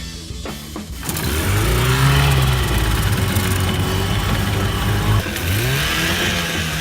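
Old outboard boat motor running at speed: it revs up about a second in, holds steady, then drops back and revs up again near the end.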